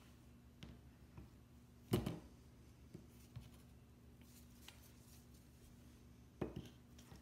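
Metal lightsaber hilts set down and shifted on a tabletop by gloved hands: a sharp knock about two seconds in and another near the end, with light taps in between, over a faint steady hum.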